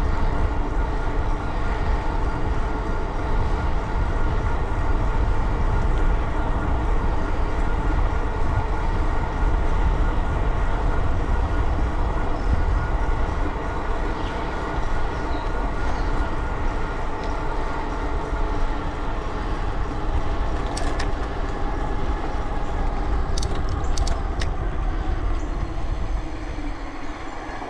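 Steady rush of wind over the microphone, with a steady hum from tyres and running gear while riding fast along the trail, fading near the end as the ride slows. A few light clicks come about two-thirds of the way through.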